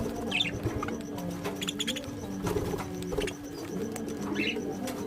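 Birds calling: low, wavering coo-like calls with short high chirps a few times, over a steady low hum.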